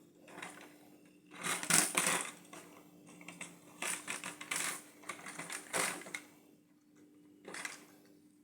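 Plastic LEGO parts clicking and rattling in several short bursts as the fire station's garage door is opened and the toy fire engine is pushed out.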